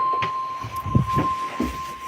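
NOAA Weather Radio's 1050 Hz warning alarm tone sounding steadily over radio static, part of the weekly test of the alert system. A few low thumps come about a second in.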